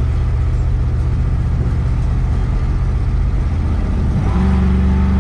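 1970 Plymouth Fury III's engine running while the convertible is driven, with wind and road noise; a little past four seconds in the engine note steps up and grows louder as it pulls harder. The driver says the freshly rebuilt carburetor still needs a little more work.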